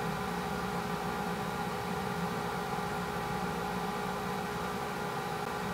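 Steady machine-like hum with several steady tones over a soft hiss, unchanging throughout.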